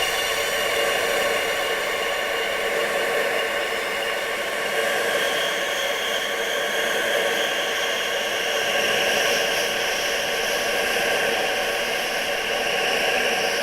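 Steady wind-sound noise for tinnitus masking: an even hiss with faint held tones running through it, its upper part growing a little brighter about five seconds in.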